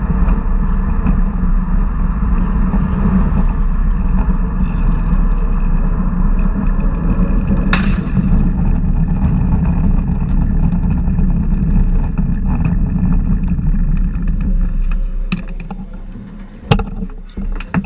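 Steady rushing wind and road noise of a human-powered racing vehicle in motion. It eases off about 15 seconds in, and a few sharp clicks follow near the end.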